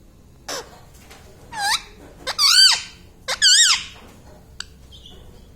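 Indian ringneck parrot calling: a short sharp note, then three shrill calls with a wavering, rising-and-falling pitch.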